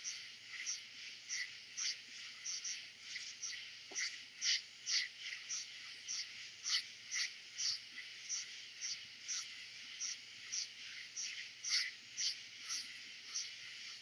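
Dense summer-night insect chorus of katydids and crickets: a steady high trill under loud, rhythmic chirping pulses about two to three a second.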